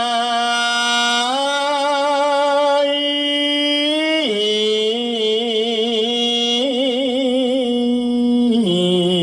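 A solo male voice chanting Khmer smot, Buddhist chanted verse, on long held vowels. The pitch steps up about a second in and drops about four seconds in. It then wavers in a slow vibrato and drops again near the end.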